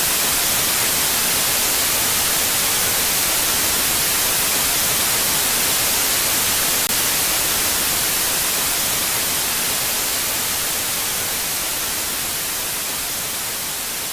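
Loud, steady static hiss like white noise, strongest in the high range, slowly fading out over the last few seconds.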